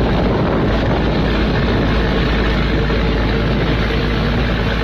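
Rough sea breaking in heavy surf, with wind buffeting the microphone: a loud, steady roar with a strong low rumble.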